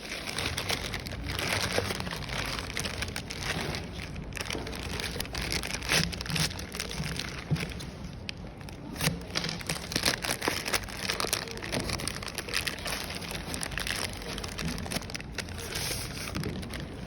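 Packaging being handled and unwrapped: steady crinkling and rustling with many irregular small clicks and taps.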